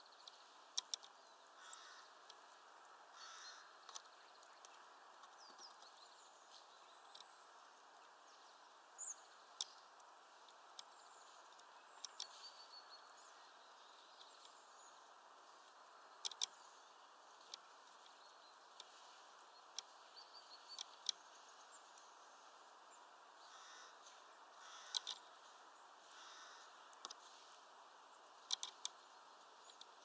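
Grey-headed woodpecker's bill tapping at fat in a wire spiral feeder: scattered sharp taps, singly or in quick runs of two or three, over a faint hiss. Faint high chirps of other birds are heard now and then.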